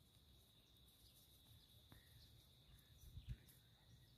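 Near silence: outdoor room tone with a faint steady high whine, one soft click about two seconds in, and a few faint low knocks about three seconds in.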